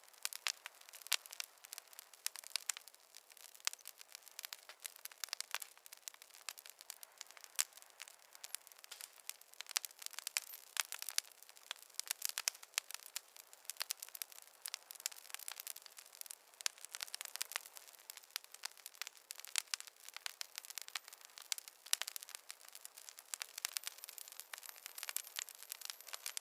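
Wood fire crackling in a fireplace: a dense, irregular run of small sharp pops and snaps over a faint hiss, with no low rumble.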